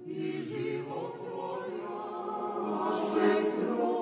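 A choir singing slow, held chords with no instruments.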